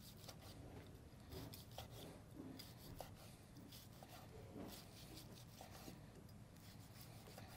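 Faint knife strokes slicing a grilled ribeye steak on a wooden cutting board, with light clicks and scrapes of the blade against the board.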